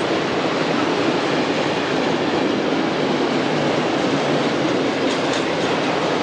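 Freight train of tank wagons rolling past at speed: a loud, steady noise of wheels on rails.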